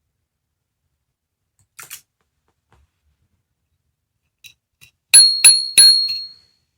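A sound-making capsule toy giving three quick bell dings, a high clear ringing tone lingering briefly after the last one. A few soft clicks come before them as the toy is handled.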